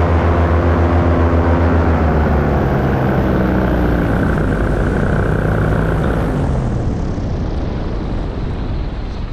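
Paramotor's propeller engine throttling back, its pitch sliding steadily down and the engine note fading out over several seconds, leaving mostly wind rush.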